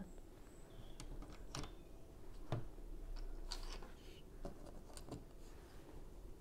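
Plastic Lego pieces clicking and tapping as they are handled and pressed onto the build: scattered irregular clicks, the sharpest about two and a half seconds in.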